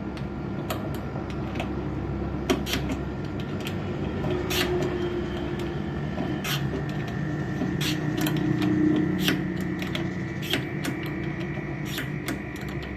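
Mitsubishi split-type air conditioner running steadily during a refrigerant pump-down, its compressor pulling the refrigerant back into the outdoor unit, with scattered sharp clicks and ticks over the hum.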